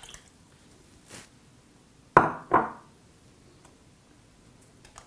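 Small glass bowl set down on a hard surface: two sharp knocks about half a second apart, each with a brief ringing.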